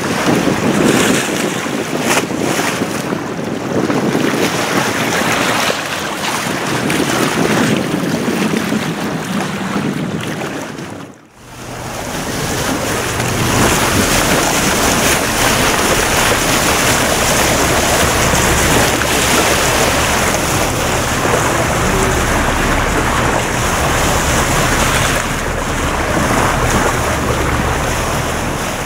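Sea water rushing and splashing along a moving boat's bow, with wind buffeting the microphone. After a brief drop about a third of the way in, a steady low rumble joins the wash.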